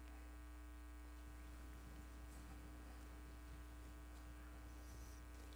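Near silence with a steady low electrical hum that does not change.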